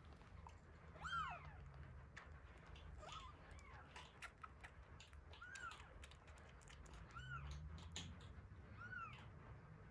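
Faint, high-pitched mews of week-old kittens: about five short cries, each rising then falling in pitch, the loudest about a second in. Soft clicks in between come from the kitten suckling at a milk bottle.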